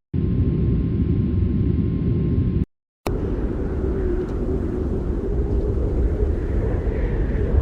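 Low, steady rumbling ambience that stops abruptly about two and a half seconds in; after a short silence a second, similar rumble starts, with a faint higher whine that rises and falls. The first rumble carries a faint steady tone above it.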